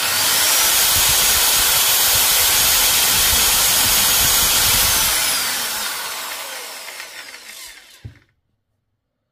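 Electric drill running with no load, its chuck spinning at about 1,930 rpm, then the trigger released so the motor winds down with a falling whine. A short low knock comes just before it stops.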